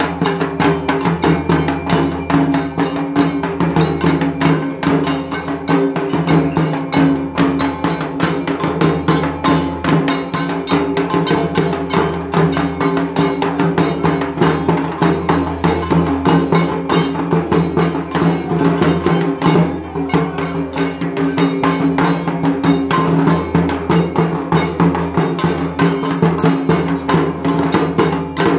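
Several dhaks, the large Bengali barrel drums, beaten with sticks in a fast, continuous rhythm, with a metallic ringing over the drumming.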